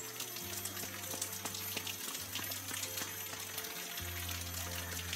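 Soft background music of low held notes that change about every two seconds, over the steady splashing of water spouts pouring onto stone.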